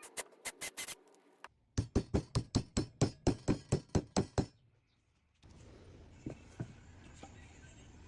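A rapid run of about a dozen sharp hammer taps on wood, roughly five a second, lasting nearly three seconds and then stopping, with a few lighter clicks before it.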